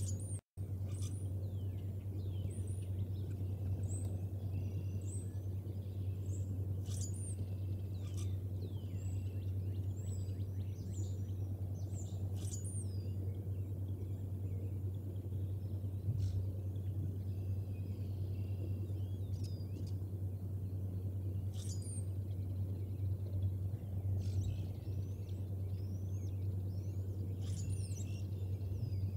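Birds chirping and calling outdoors in many short, high, sweeping notes scattered throughout, over a steady low hum. The sound cuts out for an instant about half a second in.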